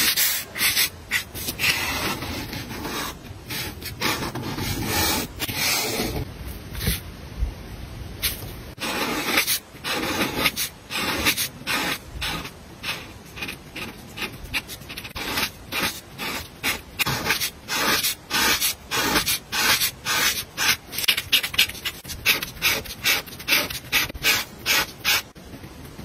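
Acrylic paint marker's felt tip rubbing across textured paper as it fills in colour, in a long run of short scratchy strokes that settles into a steady rhythm of about two a second.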